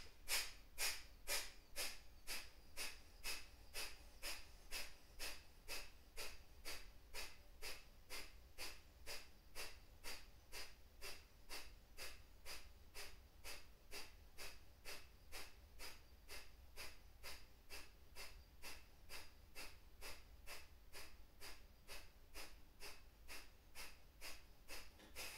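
Kapalabhati breathing: a person's short, forceful exhalations through the nose, evenly paced at about two a second, each a brief hiss of air.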